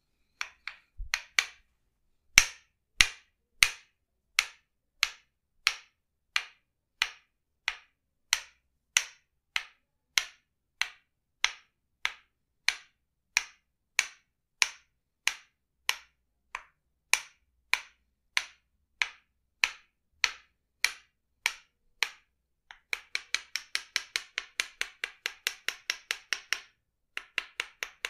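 Tok Sen massage tapping: a wooden mallet striking a wooden wedge in steady, sharp knocks about one and a half a second. Near the end the taps switch to quick runs several times a second, with a short break between runs.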